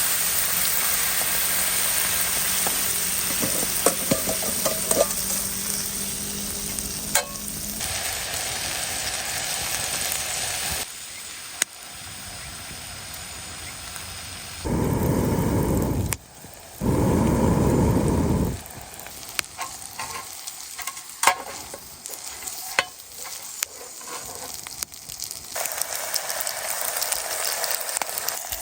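Frozen pasta sizzling over a campfire, with scattered clicks and knocks. The sizzle drops away about eleven seconds in. Midway come two loud rushing noises of about two seconds each, and the sizzling returns near the end.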